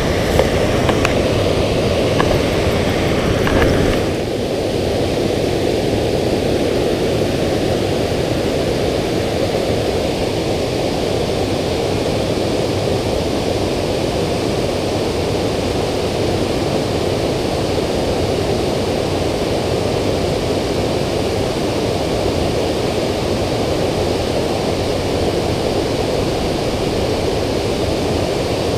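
Steady rush of water pouring over a low dam spillway, an even roar with no let-up. A few light clicks and rustling sit on top of it in the first four seconds.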